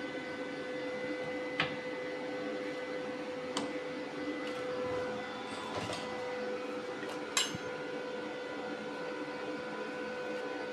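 A steady electrical hum with a few fixed tones, from an inverter arc welder left switched on, broken by a few sharp light knocks of steel as the door frame is set in place, the loudest a little past the middle.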